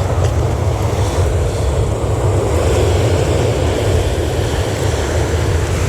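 Steady wind buffeting the microphone over the wash of surf, a low rumble with a noisy hiss that swells slightly in the middle.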